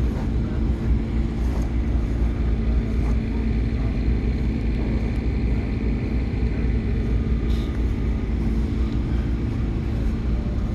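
Steady low mechanical drone with a constant hum, holding an even level throughout, with a few faint ticks.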